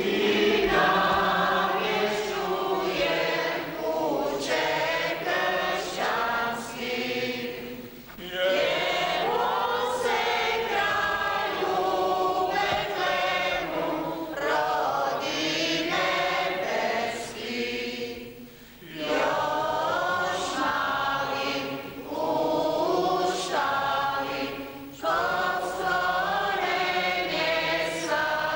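Church congregation of men and women singing a hymn together, in long phrases with short breaks about eight, nineteen and twenty-five seconds in.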